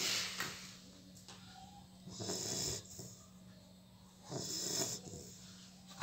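Sleeping Labrador puppy snoring, three snores about two seconds apart.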